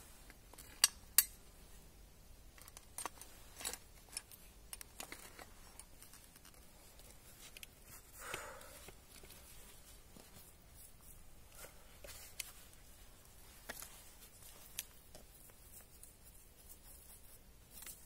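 Small hand tool scraping and poking into dry forest soil and debris under a log, making scattered sharp clicks and ticks, the two loudest about a second in. A short, soft swish of disturbed soil or leaves comes about eight seconds in.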